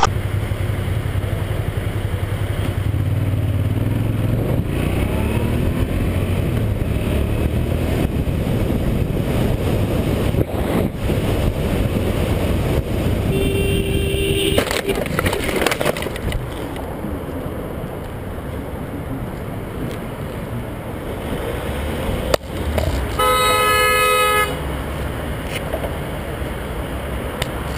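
Vehicle engine and road noise, with a vehicle horn sounding twice: a short blast about halfway through, as a van cuts across, and a louder, longer blast near the end, just after a sharp knock.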